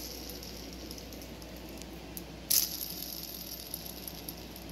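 Old shaft bearing from a John Deere hydraulic pump, spun by hand, making a steady rolling noise with a louder burst about halfway through. It was taken off a pump that was making noise.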